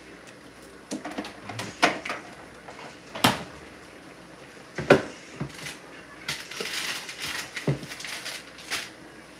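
Kitchen clatter: a handful of separate knocks as bottles and other items are handled and set down on a counter, with some rustling around two thirds of the way through.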